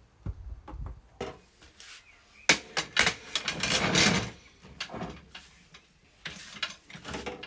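A trolley jack being worked under the front of a car: metal clicks, knocks and clatter, with a longer, denser rattling stretch about two and a half seconds in that lasts some two seconds.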